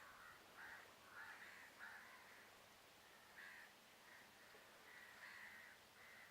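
Faint bird calls: a string of short, rough calls repeating every half second to a second.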